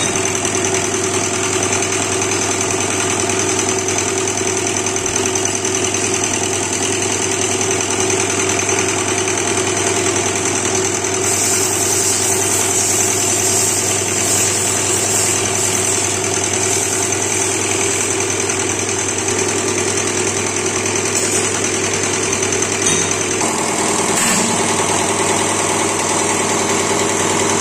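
Diesel fuel injection pump test bench running, its drive turning an inline injection pump that is being checked: a steady mechanical hum and whir. A higher hiss joins about eleven seconds in, and the tone shifts a little about twenty-three seconds in.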